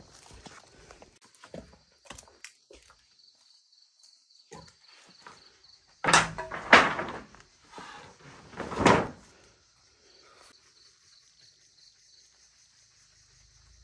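A run of light knocks, then three loud thuds in the middle, the last one alone. A steady high-pitched hiss runs behind them.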